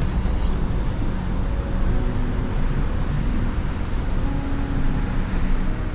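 Steady low outdoor rumble with a few faint steady hums over it, without any clear single event.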